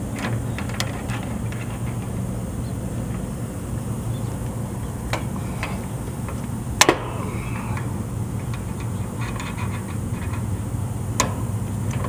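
Steady low background rumble, with a few sharp metallic clicks from pliers crimping and handling a butt connector on a wire. The loudest is a double click about seven seconds in.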